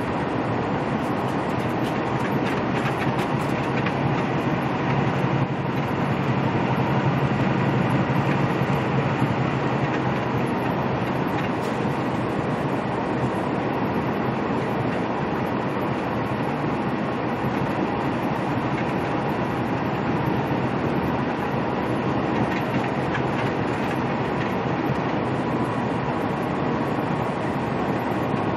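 Steady drone inside a semi-truck's cab at highway speed: the diesel engine and the tyres on the road. A low engine hum grows louder for a few seconds about five seconds in.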